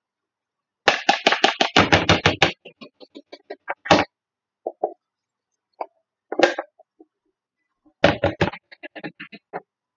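A glitter glue bottle being knocked and shaken to get the last of the glue out: a quick run of about six sharp knocks a second, then scattered lighter taps with a few louder knocks and a second quick burst near the end.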